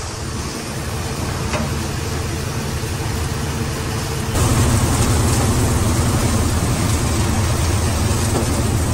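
Tractor-driven multicrop thresher running steadily as soybean crop is fed into it, its drum and fan running together with the Swaraj tractor's low engine hum. The sound gets louder and fuller about four and a half seconds in.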